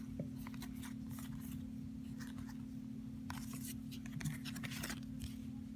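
Trading cards being handled and slid against each other: short, scattered rustles and scrapes of card stock, with two longer slides, one just after three seconds in and one just before five. A steady low hum sits underneath.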